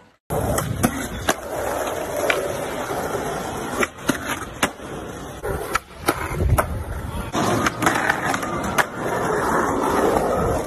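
Skateboard wheels rolling on stone paving, broken by repeated sharp clacks as the tail pops and the board lands during tricks.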